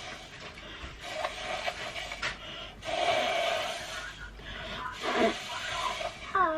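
Breathy blowing through a drinking straw in about three long puffs, pushing blobs of paint across paper. A short falling high-pitched call comes right at the end.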